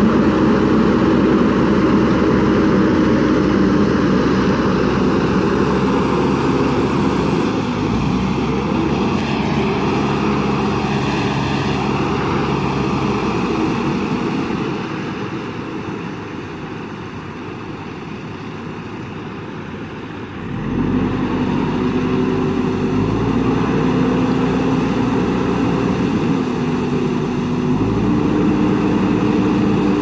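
JCB 3DX backhoe loader's diesel engine working hard as the machine ploughs through shallow river water, with water splashing around the wheels and bucket. The engine drops back and goes quieter through the middle, then revs up again about two-thirds of the way in, its pitch stepping up and down.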